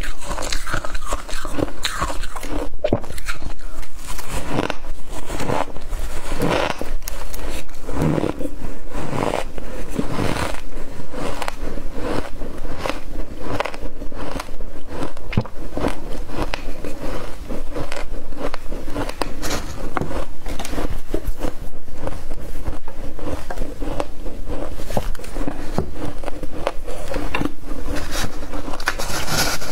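Freezer frost being bitten and chewed up close: a dense, continuous run of crisp crunches and crackles. Near the end a metal spoon scrapes through the frost in the container.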